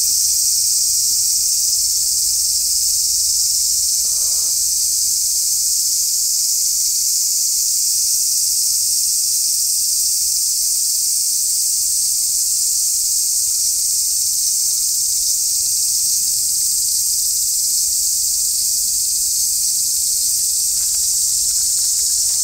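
Cicadas in a loud, steady, high-pitched chorus.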